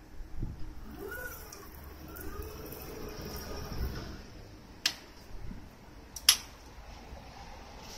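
Zowell XEB 1.5-ton walkie electric stacker's drive motor whining, rising and falling in pitch as it is worked through the tiller, over a steady hum. Two sharp clicks come about five and six seconds in.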